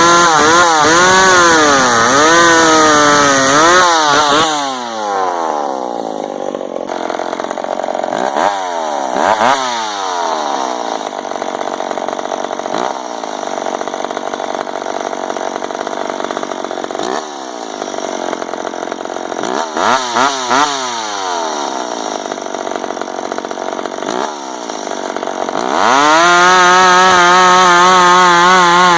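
McCulloch Pro Mac 55 two-stroke chainsaw running at full throttle with its pitch wavering. About four seconds in it drops back to a lower speed and is blipped several times, each rev falling away. Near the end it goes back up to full throttle.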